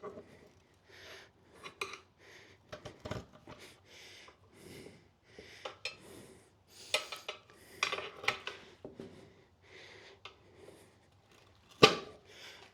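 Metal tire spoons scraping and clinking against the wheel rim as a motorcycle tire is levered off, with irregular rasping rubs and clacks of metal and rubber. A sharp, loud metallic knock comes near the end.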